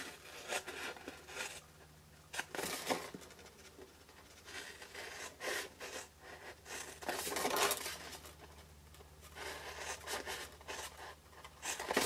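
Scissors snipping through a sheet of patterned craft paper in several short bursts of cutting, with the paper rustling as it is handled.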